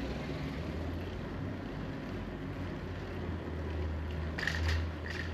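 Steady low wind and road rumble on a bicycle-mounted camera while riding along a paved street. Two short high-pitched sounds near the end.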